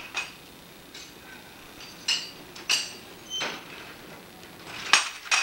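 Metal gym equipment clinking: about six sharp metallic clinks at irregular intervals, each with a brief ring, as parts of a weight machine knock together.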